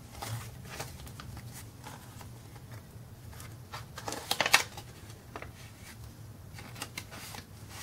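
Paper banknotes rustling as they are handled and slid into a paper cash envelope, with a louder crinkle about four and a half seconds in.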